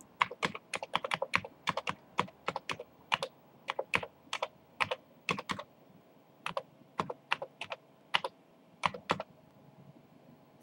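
Keystrokes on a Commodore 128 keyboard, typed in uneven runs of clicks with short pauses between them, as a modem dial command is entered.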